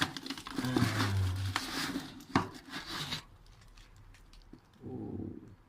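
Rustling and clattering handling noise with scattered clicks and one sharp click about two and a half seconds in, then quieter, with a brief low murmur near the end.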